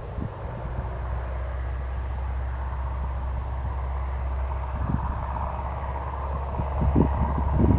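Cessna 172R Skyhawk's four-cylinder Lycoming engine and propeller running steadily, growing louder near the end, with wind gusting on the microphone.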